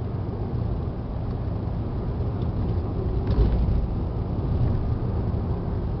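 Steady low rumble of a car's engine and tyres on the road, heard from inside the moving car, with a brief louder low thump about three seconds in.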